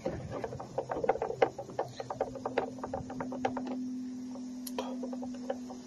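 Quick run of light clicking, several clicks a second, as a screw is worked out of a battery charger's casing; the clicks thin out after about three seconds. A steady low hum sets in about two seconds in.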